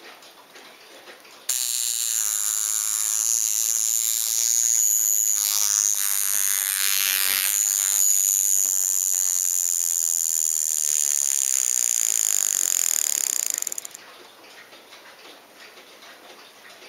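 Mechanical alarm of a Poljot Signal wristwatch going off. A loud metallic buzz starts suddenly about a second and a half in, runs for about twelve seconds, then stops abruptly.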